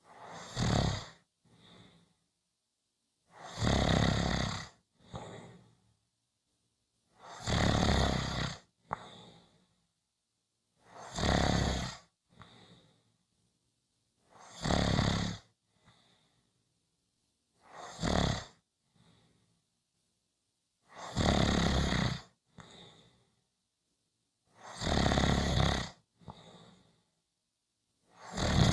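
Snoring: a loud snore about every three and a half seconds, each followed by a short, softer breath.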